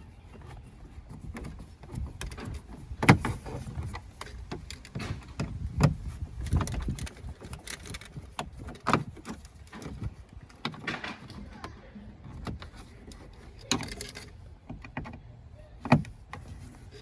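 Irregular knocks, clicks and rattles of hands and tools handling the truck's dashboard trim parts, with a few sharper knocks scattered through.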